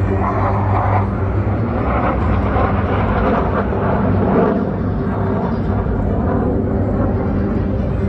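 Jet roar from the Black Eagles' KAI T-50B jets flying a formation overhead, a steady rushing noise over a constant low hum.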